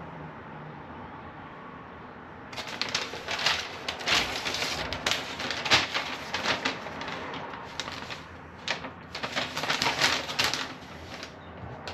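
Paper and packaging rustling and crinkling as instruction sheets and the box are rummaged through: a rapid run of crisp crackles starting about two and a half seconds in, with a brief lull near nine seconds.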